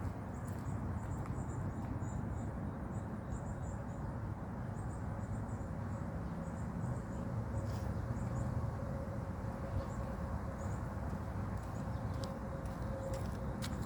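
Outdoor background: a steady low rumble with faint, very high-pitched chirps in short clusters every second or so. The warning siren is not yet sounding.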